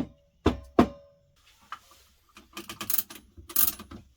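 Metal clock parts being handled during reassembly: three sharp knocks in the first second, two of them leaving a short metallic ring, then a run of rapid clattering and ratchet-like clicks from the mechanism.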